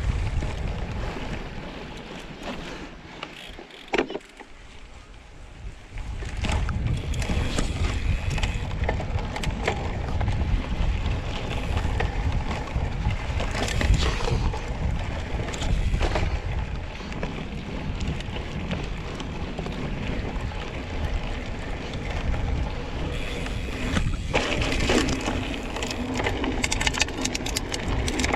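Wind rumbling on a GoPro's microphone as a mountain bike rolls fast over grass, with tyre noise and scattered clicks and rattles from the bike. The wind noise drops for a couple of seconds about three seconds in, then picks up again.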